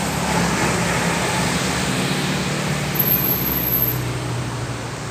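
Road traffic passing close by: a motor vehicle's engine drone over a steady hiss of road noise, fading near the end.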